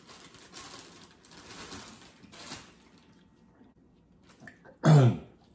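Eating noises from peeling and eating boiled shrimp and snow crab: a few short bursts of rustling and slurping over the first couple of seconds. Near the end comes one short, loud voiced sound from a diner, a wordless exclamation.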